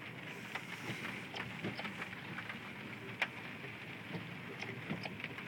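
Rain drops tapping on a car's roof and windshield: scattered irregular ticks over a steady hiss, with one sharper tick about three seconds in.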